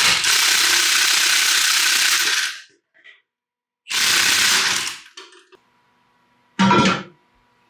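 Half-inch impact wrench hammering on a tight bolt in three bursts: a long one of about two and a half seconds, a second of about a second, and a short one near the end.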